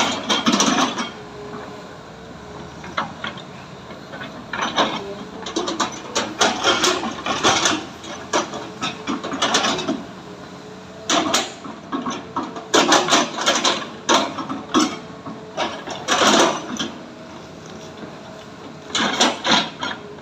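Heavy machinery working: an engine running steadily under irregular bursts of clanking and scraping.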